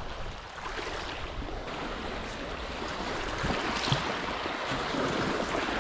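Small waves washing along the shore, with a steady hiss of wind.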